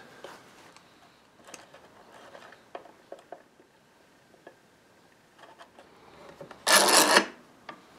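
Faint taps and rubs of tools against a small wooden box as glue is worked into a loose corner joint, then, about a second before the end, a brief loud scraping rattle from steel bar clamps being slid and set across the box, followed by a small click.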